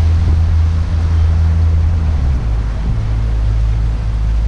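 Pontoon boat's outboard motor running under way, a loud steady low drone that drops lower a little over halfway through.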